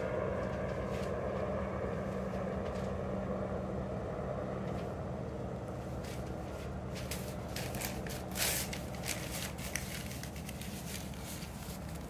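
A small fire of dry leaves and twigs crackling in a metal fire bowl. The pops come thicker in the second half, with one louder pop about eight and a half seconds in. Under it a steady low engine hum, like a vehicle's, slowly fades away.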